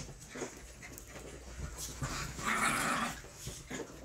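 A dog whimpering and grumbling while begging for treats; the longest, loudest grumble comes about two and a half seconds in.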